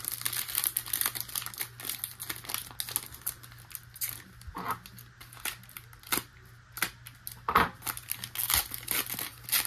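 Foil wrapper of a 2023 Panini Absolute football card pack being torn open and crinkled by hand, a quick run of sharp crackles and rips as the cards are worked out of it, with one louder thump about seven and a half seconds in.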